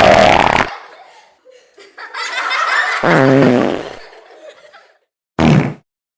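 Diarrhea-style fart sound effects mixed with laughter: a loud one dying away in the first second, a longer buzzing one about three to four seconds in, and a short burst near the end.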